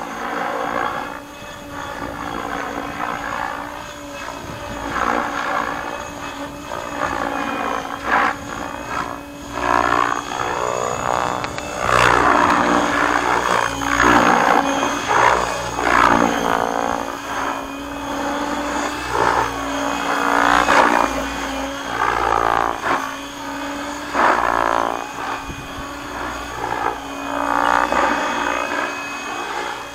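Align T-Rex 700X electric RC helicopter in 3D aerobatic flight, its main rotor turning at a low 1700 rpm headspeed. The rotor and brushless motor sound sweeps up and down in pitch and swells and fades over and over as the model swoops and manoeuvres, loudest in the middle stretch.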